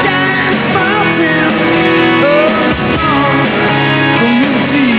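Music: a song with a wavering sung melody over guitar and sustained backing notes.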